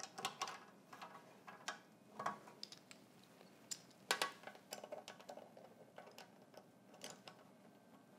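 Faint, irregular clicks and light knocks as the metal parts of a quilting-frame carriage are handled, with one sharper knock about four seconds in.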